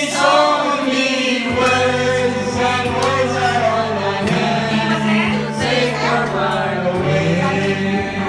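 A man singing into a handheld microphone over backing music with steady sustained low notes, karaoke-style; his voice glides through held notes without a break.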